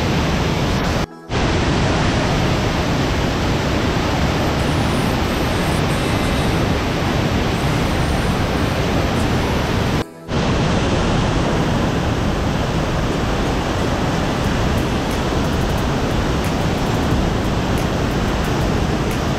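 Powerful mountain waterfall heard from right beside it: a loud, steady rush of falling water with spray blowing onto the microphone. The sound cuts out for an instant twice, about a second in and about ten seconds in.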